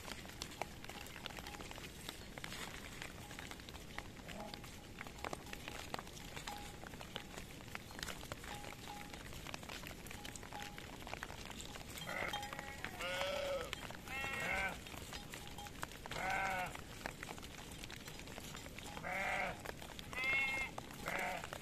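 A flock of sheep moving through brush, with faint rustling and scattered clicks for about the first twelve seconds, then sheep bleating about seven times in wavering calls through the second half.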